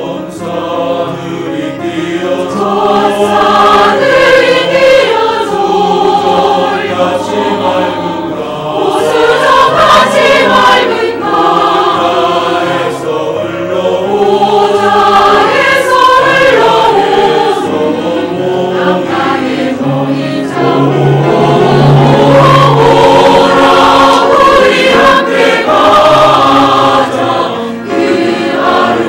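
Church choir singing a hymn anthem in parts with instrumental accompaniment.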